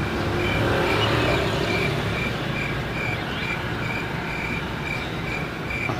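Steady street and traffic noise, with a short high chirp repeating a little more than twice a second.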